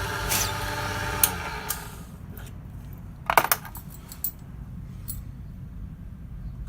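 Key-cutting machine's motor running with a steady hum, shut off about a second in and winding down. Then a few sharp metallic clinks as keys are handled.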